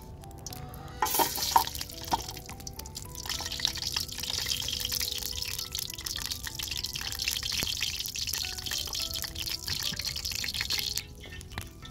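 Chopped onions tipped into hot oil in a large aluminium pot: a few knocks as they land about a second in, then a steady sizzle of frying that cuts off abruptly near the end.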